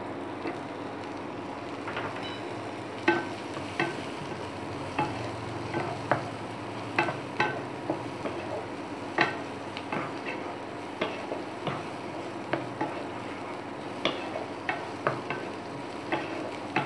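Diced green capsicum frying in butter with onion and garlic in a non-stick pan, giving a steady sizzle. A spatula stirs and scrapes the vegetables, knocking against the pan in irregular sharp clicks about once or twice a second.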